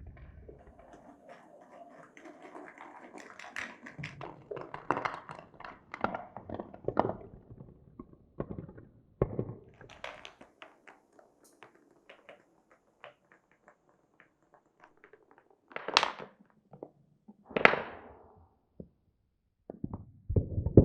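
Glass marbles rolling and clattering down a wooden marble run, a busy run of small clicks and rattles that thins to scattered ticks. Two loud clacks about a second and a half apart near the end.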